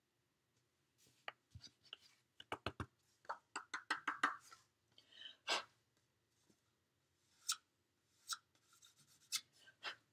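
Scattered light taps and clicks with a brief rustle: a piece of cardstock being tapped to shake off excess white embossing powder onto paper, and a small plastic powder jar being handled on the table.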